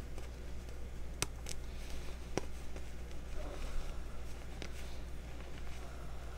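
Hands squeezing and crumbling reformed gym chalk chunks in loose chalk powder, a soft gritty crunch with a few sharp snaps as pieces break, the clearest one about two and a half seconds in. A steady low hum runs underneath.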